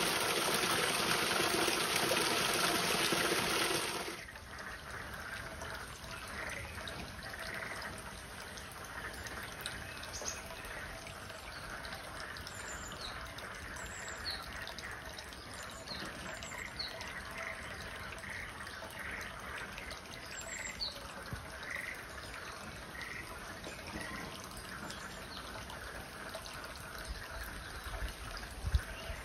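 Water running hard for about four seconds, then stopping abruptly to a steady trickle. Over the trickle, short high chirps or notes repeat roughly once a second.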